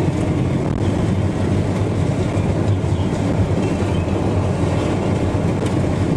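Car driving on a gravel road: a steady low rumble of tyres and engine.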